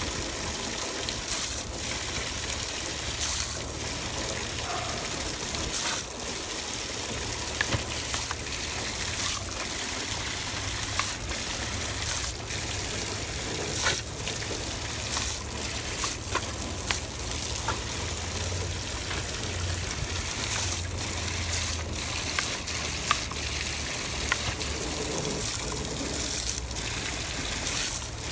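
Steady stream of water from a garden hose splashing, broken by frequent irregular sharper splashes as a dog bites and laps at the stream.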